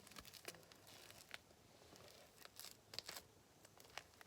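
Faint sticky clicks and tearing crackles of fluffy slime (glue and shaving foam activated with contact solution) being stretched and kneaded in the hands while it is still wet and tacky.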